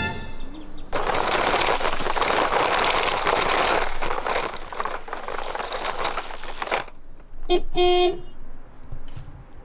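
Dry fallen leaves rustling and crunching under the wheels of a toy transporter truck as it is driven through them. Near the end a horn honks twice, the second honk a little longer.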